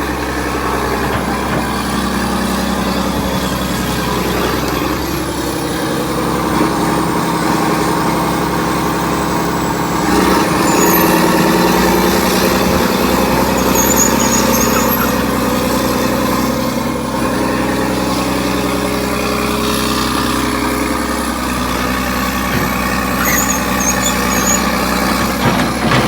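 John Deere 790 excavator's diesel engine running steadily at low throttle while the machine digs, getting louder for several seconds about ten seconds in as it takes more load.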